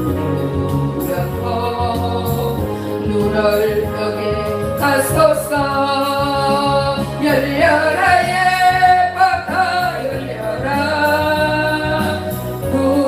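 Korean gospel song: a solo voice singing held, sliding notes over steady instrumental accompaniment with a bass line. The voice comes in strongly about a third of the way through.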